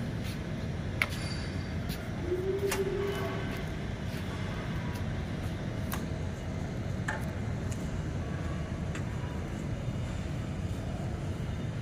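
Steady low rumble of workshop background noise, with a few light clicks and knocks scattered through it.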